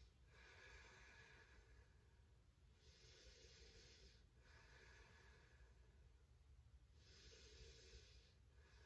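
Faint, slow, deep human breathing, each breath in or out a soft hiss lasting one to two seconds, about four or five in a row.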